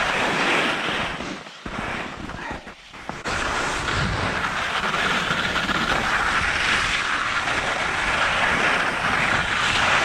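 Touring skis hissing over soft snow, with wind rushing over the microphone, during a downhill run. The noise dips briefly twice early on and then holds steady from about three seconds in.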